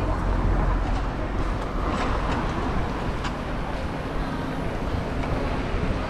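City street traffic noise: a steady low rumble of cars going by, loudest in the first second, with a few faint clicks.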